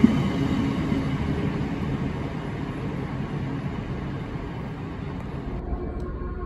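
Royal Mail Class 325 electric postal train rumbling past and moving away, the sound slowly fading, with a sharp knock of wheels right at the start.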